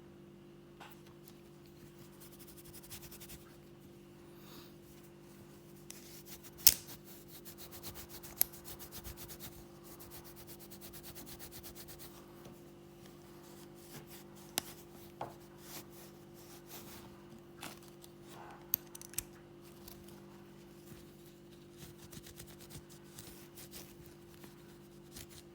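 Cloth polishing a sonic screwdriver replica by hand: quiet, rapid rubbing strokes, with a few sharp clicks from handling the prop, the loudest about a quarter of the way in.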